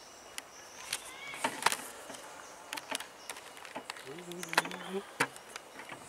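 Scattered sharp clicks and knocks over a faint high insect buzz, with a short, steady, low hummed voice lasting about a second, starting about four seconds in.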